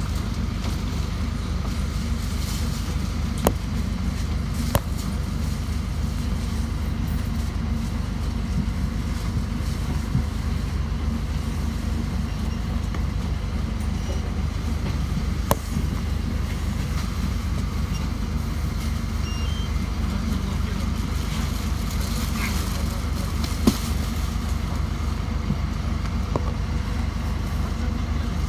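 Steady low rumble of a bus engine idling at the stop, with a few sharp clicks scattered through it and faint voices in the background.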